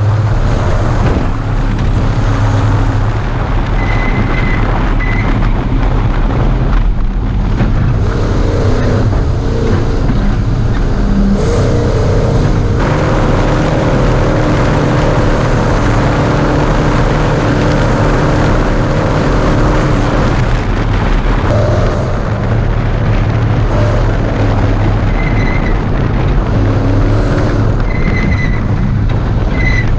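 Class 1450 Ford Ranger race truck's engine running hard at speed, loud and continuous, mixed with wind and road noise; the engine pitch holds steady for several seconds in the middle.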